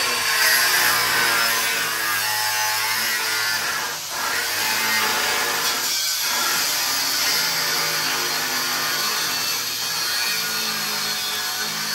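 Angle grinder cutting into a thick steel plate: a steady high grinding whine that holds throughout. A second power tool, a cordless drill, runs alongside it.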